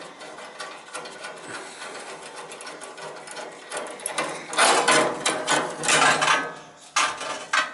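Rapid metallic clicking and rattling from hands working on the pilot and thermocouple assembly of a gas space heater, growing louder and denser about halfway through.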